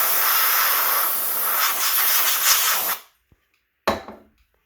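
A can of compressed air spraying a steady hiss into a smoke detector to clear out test smoke, cut off sharply about three seconds in. A short sharp sound follows about a second later.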